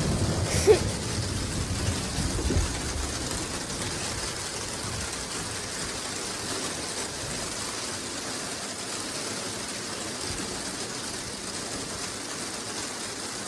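Heavy rain pouring down, a steady even hiss. A low rumble dies away over the first few seconds, and a single sharp knock sounds just under a second in.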